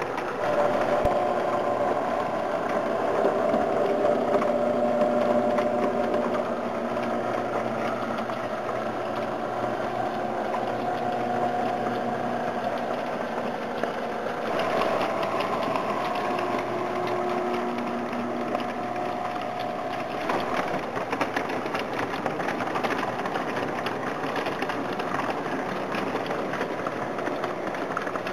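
S gauge model train running: the steady hum of the two diesel switcher locomotives' motors, with the cars' wheels rolling and clicking over the tinplate track. Steady tones in the hum fade in and out as the locomotives pass.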